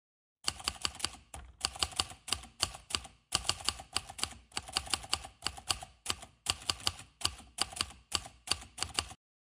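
Typing sound effect: quick keystroke clicks, several a second in short runs with brief gaps, for a title typed out letter by letter on screen.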